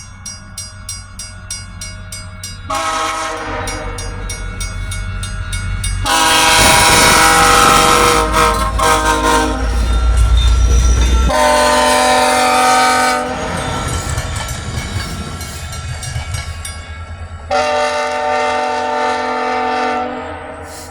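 VIA Rail diesel locomotive 6411's multi-chime air horn sounding long blasts. The loudest stretch, between about six and eleven seconds in, comes with a heavy low rumble, and a last blast sounds near the end. A rapid, regular clicking is heard at the start.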